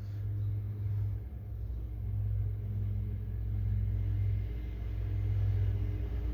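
Petrol lawn mowers running, a steady low engine rumble that swells and eases, under a ceiling fan turning on its low speed.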